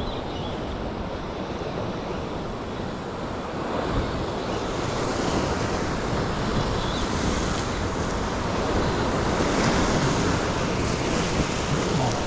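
Ocean surf washing steadily, growing a little louder in the second half, with wind buffeting the microphone.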